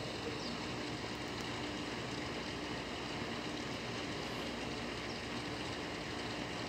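Steady ambient noise: an even hiss with a faint steady low hum and no distinct events.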